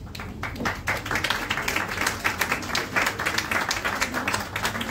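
Audience applauding: many people clapping, which thickens about a second in.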